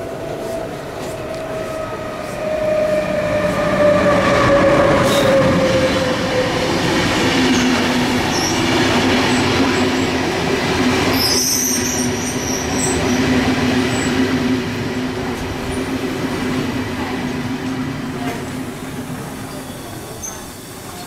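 Electric train running through the station: a whine falling steadily in pitch, then a lower steady tone. A short high wheel squeal comes about eleven seconds in.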